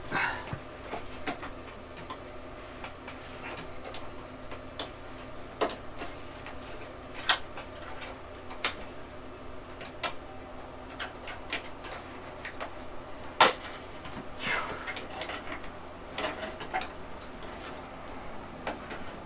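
Irregular clicks, snaps and rustles of plastic power connectors and cables being unplugged and pulled out inside a Dell Dimension 9200 desktop case while its old power supply is removed, with the sharpest clicks about seven and thirteen seconds in. A faint steady hum runs underneath.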